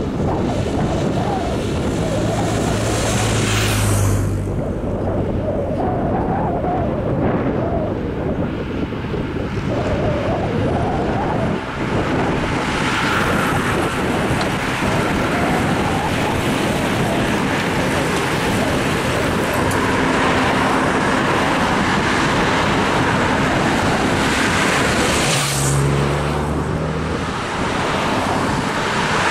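A race motorbike passes close a few seconds in. Then the peloton of road cyclists sweeps by in a long, steady rush. Near the end, team cars carrying spare bikes on their roofs drive past. Wind on the microphone runs underneath.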